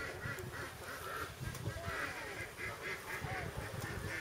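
A bird giving short, harsh, rasping calls over and over, two to three a second, loudest about halfway through.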